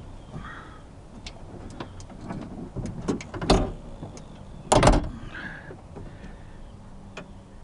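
Hand work on a 2005 Kia Sedona's door: scattered light clicks and taps, with two louder clunks about three and a half and five seconds in.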